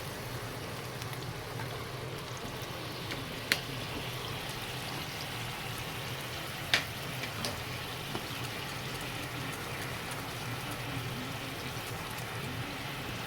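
Daikon radish steak cooking in a pan: a steady bubbling hiss, with two sharp clicks a few seconds apart and a few fainter ticks after them.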